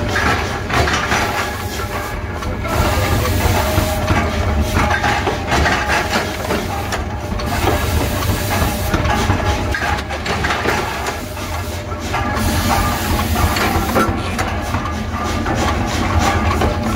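Forge shop machinery running: the steady low hum and hiss of a flywheel-driven forging press and its furnace, with irregular metal clanks and knocks throughout.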